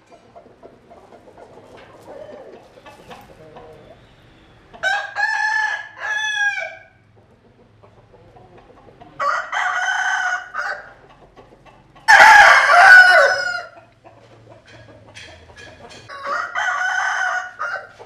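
Rooster crowing four times, each crow lasting about one and a half to two seconds, a few seconds apart; the third crow is the loudest.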